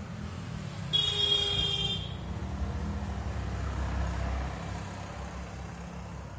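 Steady low background rumble, with a high-pitched tone sounding for about a second, beginning about a second in.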